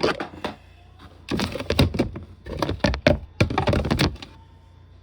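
Hard plastic organizer bins knocking and clattering against each other and the shelf as they are shuffled into place, in several quick clusters that stop about four seconds in.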